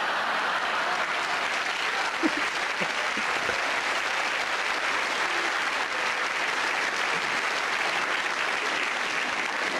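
A large theatre audience applauding steadily after a comedian's punchline.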